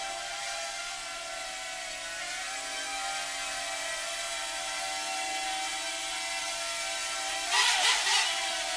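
Eachine H8 Mini micro quadcopter in flight: its four small motors and propellers whine steadily, the pitch shifting a little as the throttle changes. Near the end comes a brief, louder burst of noise.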